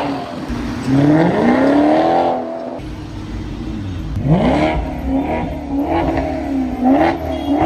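Maserati sports car engine revving, its pitch rising and falling several times, with a sharp rise about a second in and another around four seconds in.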